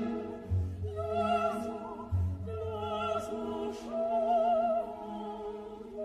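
Background classical music: a slow melody in long notes with vibrato, operatic in style, over a sustained accompaniment, with low bass notes entering about half a second and about two seconds in.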